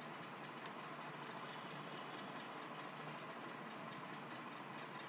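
Faint, steady background hiss with no distinct events: the room and microphone noise of a voice-over recording between sentences.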